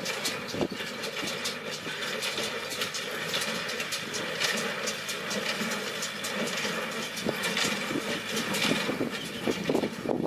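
Tractor engine running steadily while a straw baler works behind it, with irregular clattering and knocking from the baler's moving parts.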